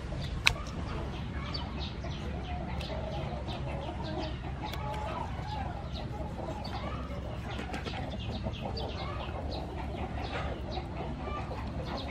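Chickens clucking in the background, with repeated short scraping strokes from a knife working a fish on a wooden chopping board. One sharp click about half a second in.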